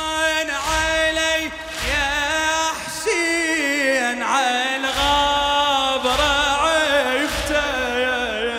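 A male reciter sings a latmiyah lament in Arabic through a microphone, drawing out long held notes with slides and ornaments. Under the voice runs a low beat about once a second, the congregation's chest-beating (latm).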